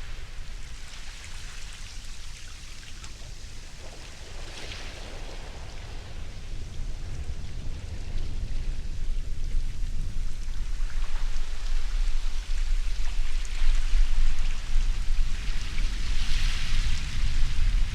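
Ocean surf washing onto a shore: hissing surges of water about four seconds in and again near the end, over a steady low rumble, growing louder through the second half.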